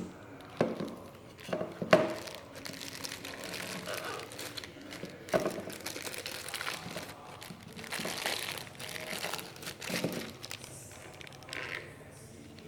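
Plastic packaging crinkling and rustling as it is handled, with a few sharp knocks of parts being set down or bumped. The loudest knock comes about two seconds in.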